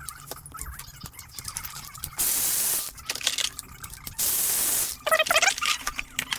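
Two short, sharp bursts of spray hiss, each about half a second long and starting and stopping abruptly, with light clicking and clatter of metal parts between them.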